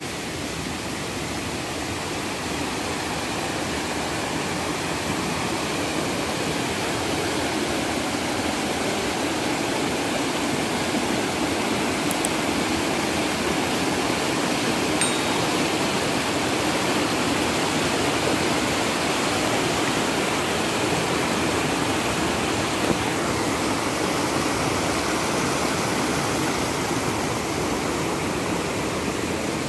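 Mountain river rushing over rocks, a steady, even roar of water that is a little louder in the middle.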